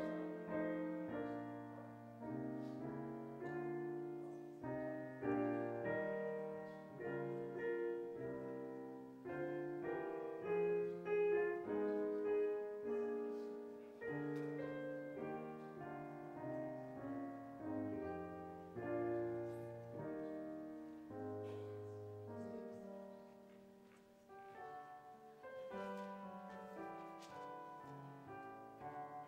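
Piano music: sustained chords over a bass line, with each note dying away. It grows quieter a little past two-thirds of the way through, then picks up again.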